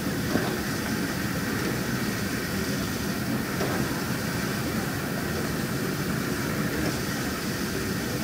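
Steady rumbling hiss of a standing steam locomotive, heard through a Super 8 film's mono soundtrack.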